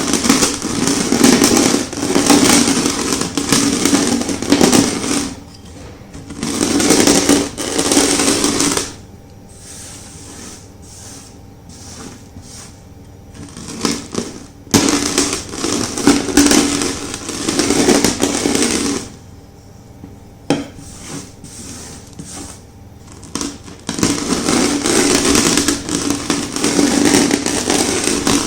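A rolling pin crushing chunks of reformed gym chalk, crunching and crumbling in loud bouts of a few seconds each. Between the bouts come quieter stretches of scattered small crackles.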